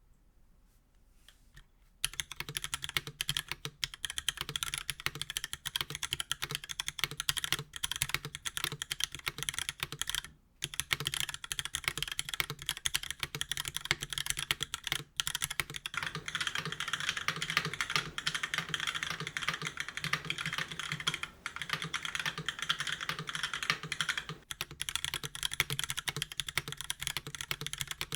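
Fast, continuous typing on a mechanical keyboard with dry (unlubed) Cherry MX2A Black linear switches in a stainless steel plate, top-mounted in a polycarbonate case, with GMK doubleshot keycaps. The keystrokes start about two seconds in and run densely, with two brief pauses.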